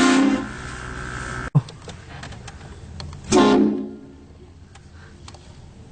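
Train horn mounted on a car sounding two short chord blasts, one right at the start and a louder one about three seconds in that dies away within half a second.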